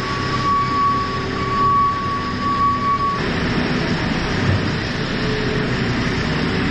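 Tractor engine and pneumatic spreader running steadily under a dense rumble, with a high steady whine that stops about three seconds in.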